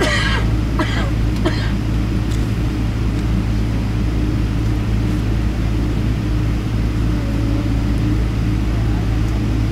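Steady cabin drone of a Boeing 777-200ER taxiing, heard from a window seat behind the wing: the low hum of its Rolls-Royce Trent 892 engines at taxi power with a steady tone above it. A few brief voice sounds come in the first second or two.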